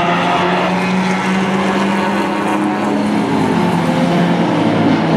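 Race car engine heard on board, holding a steady note that edges up and then drops to a lower pitch about three seconds in.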